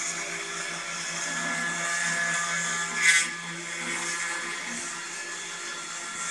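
Desktop CNC engraving machine milling a wooden plaque: the spindle motor runs with a steady hum while the engraving bit cuts the wood with a hiss, at a feed rate of F600. About three seconds in there is one brief, louder scrape.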